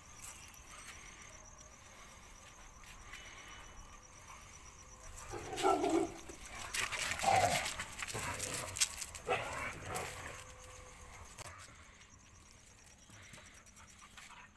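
Street dogs fighting: a burst of loud barking and yelping from about five to ten seconds in, quieter either side.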